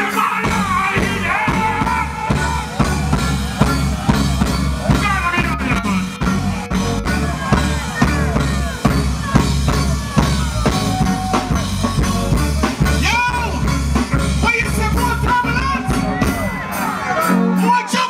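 Live reggae band playing loud through a PA, with a singer's voice over a drum kit and a steady, deep bass line; the bass drops away near the end.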